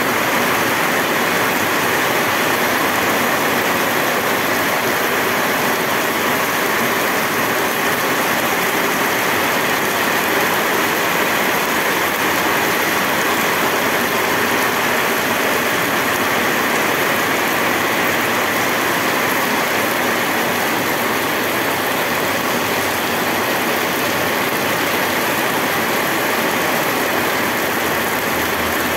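Heavy rain: a steady, dense hiss, heard from behind a rain-spattered window.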